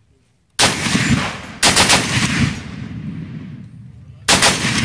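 Browning M2 .50-calibre heavy machine gun firing three short bursts: two back to back starting about half a second in, and a third near the end. Each burst trails off in a long echo.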